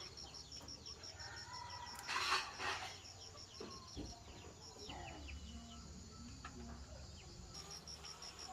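Outdoor bird sounds: short chirps and calls, possibly with fowl clucking, over a steady high pulsing call repeating about four to five times a second. A brief louder rasping burst comes about two seconds in.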